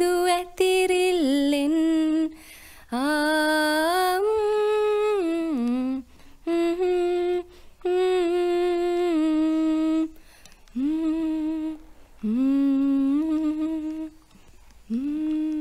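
A woman humming a slow tune unaccompanied, in phrases of a second or two with sliding pitch and short breaks between them.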